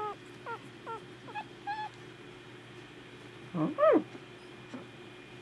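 Young miniature dachshund puppy squeaking and whimpering in a run of short high cries, then about four seconds in one louder rising-and-falling yelp. A faint steady hum runs underneath.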